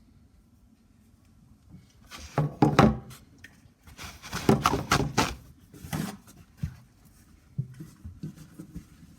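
A scooper scraping and knocking against the sugar container and mixing bowl: two busy bursts of clatter and scraping about two and four seconds in, then a few scattered taps.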